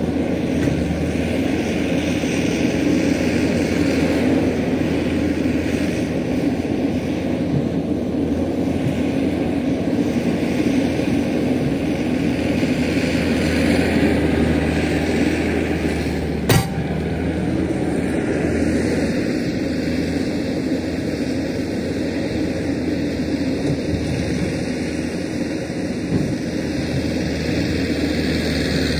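Diesel engine of construction machinery running steadily while working, with a single sharp clank a little over halfway through.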